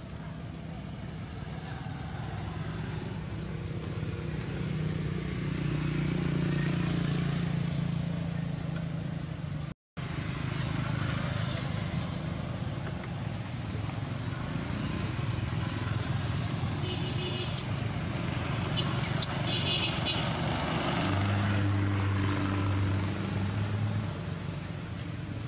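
A motor vehicle's engine running steadily, its low hum shifting in pitch a few times.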